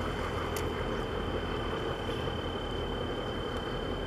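Steady harbour-side ambience: a low rumble and hiss under a thin, steady high-pitched tone, with one short click about half a second in.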